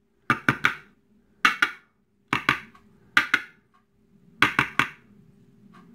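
Small metal lock parts (pin springs and pins) clicking and tapping as they are handled. The clicks come in short clusters of two to four, about once a second.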